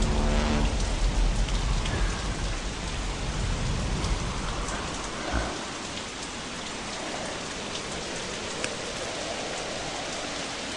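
Steady rain falling, with a single dull thud about five seconds in.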